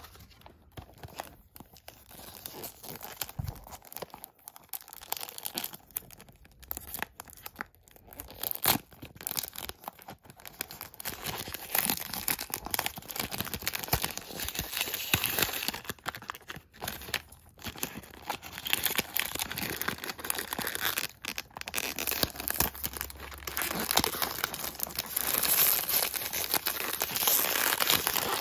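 Clear cellophane wrap on a perfume box being torn and crinkled off by hand: an irregular crackling that grows louder and busier about halfway through.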